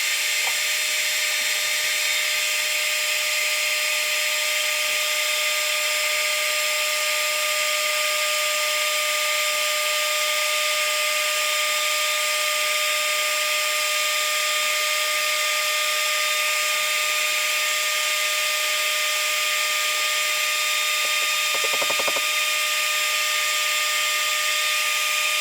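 Electric heat gun running steadily: a whooshing fan hiss with a constant whine, warming a lead jig head before it is powder coated. Near the end there is a brief rattle.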